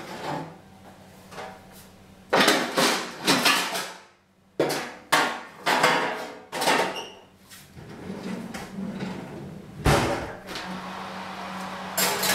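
A run of sharp metal knocks and clatters from kitchenware: oven trays and racks being shifted, and a spoon in a steel mixing bowl. A faint low, steady hum runs underneath.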